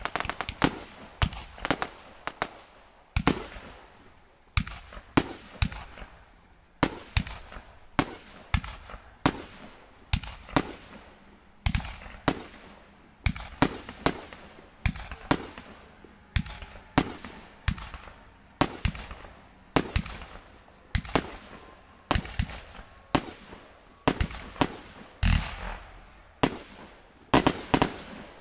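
Aerial fireworks bursting in a steady string of sharp bangs, about one to two a second, each with a short ringing echo. A heavier, deeper bang comes near the end.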